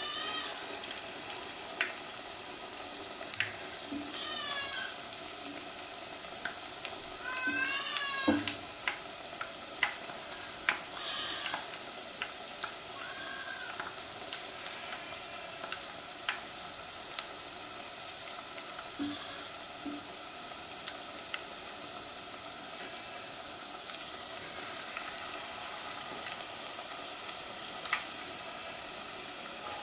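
Battered boiled-egg pieces deep-frying in hot oil: a steady sizzle with frequent sharp crackles. A few short high-pitched calls sound in the first half.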